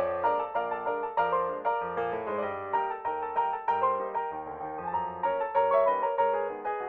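Background piano music: a flowing melody of quick, repeated notes.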